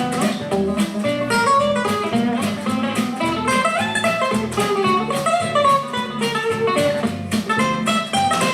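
Plucked guitar music with a steady rhythm, played back through a Creative MUVO 2 Bluetooth speaker.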